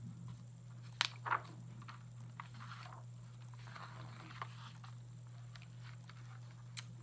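A hardcover picture book being opened and its pages turned: a few soft knocks, the loudest about a second in, and paper rustling.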